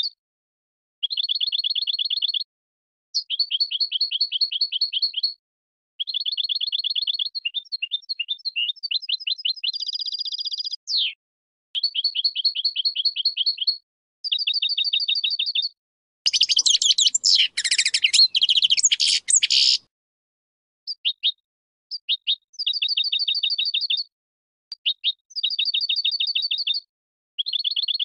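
European goldfinch of the large 'major' form singing: runs of quick, evenly repeated chirping notes, each run lasting a second or two with short pauses between. A little past the middle comes a longer, harsher twittering passage of about three seconds.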